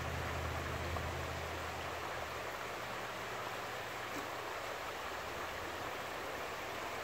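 Fast, rippling river current making a steady rushing sound. A low hum underneath fades out about two seconds in.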